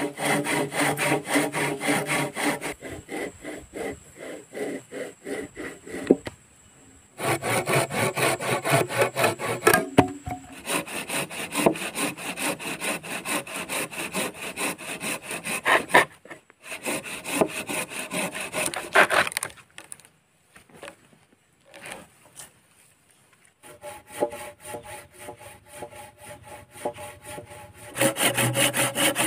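Handsaw cutting through a wooden log in quick, even back-and-forth strokes, in several runs broken by short pauses; the strokes are quieter for a few seconds past the middle and louder again near the end.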